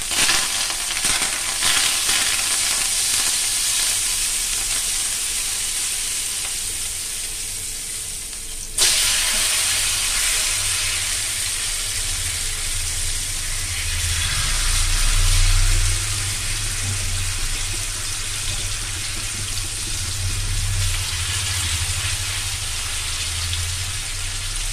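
Marinated Indian mackerel and curry leaves frying in hot coconut oil in a pan: a steady sizzle that jumps louder about nine seconds in as a fish is laid into the oil.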